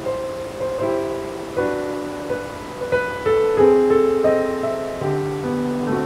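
Background piano music: a melody of single notes over held chords.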